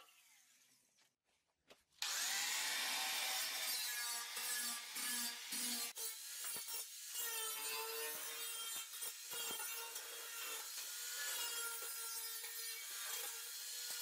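Angle grinder cutting into the thin sheet steel of an oil drum: a steady high whine with a harsh scraping edge. It starts abruptly about two seconds in.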